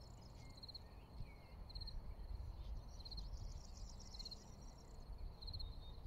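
Crickets chirping faintly outdoors in short pulsed chirps, roughly one a second, over a steady low rumble.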